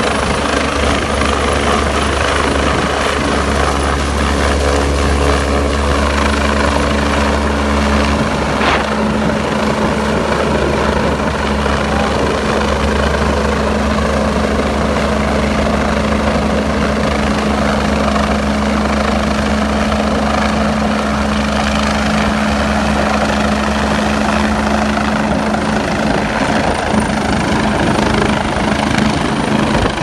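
Police rescue helicopter flying low and slow overhead with people slung on a long line beneath it: steady rotor and turbine noise, its low tone shifting slightly about eight seconds in.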